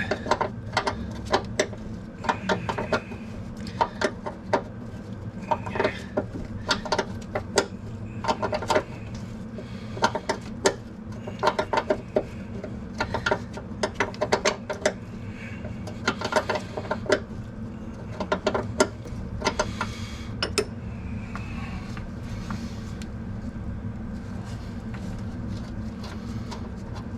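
Irregular metal clicks and ticks from a wrench working a corroded brake line fitting loose, several a second at times, over a steady low hum. The clicks thin out in the last few seconds.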